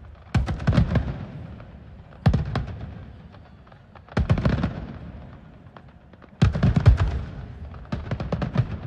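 Fireworks going off in five volleys about two seconds apart. Each volley is a quick run of sharp bangs that fades away.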